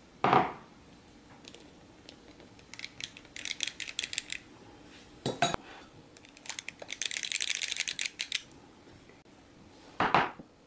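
A spoon handling glassware while whipped dalgona coffee foam is spooned onto iced milk: three dull knocks of the spoon against the glasses, near the start, in the middle and near the end. Between the knocks come two stretches of rapid light clicking and scraping.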